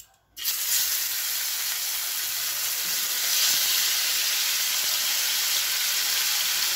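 Small amudi fish dropped into hot mustard oil in a frying pan: the oil starts to sizzle suddenly about half a second in and keeps sizzling loudly and steadily as the fish fry.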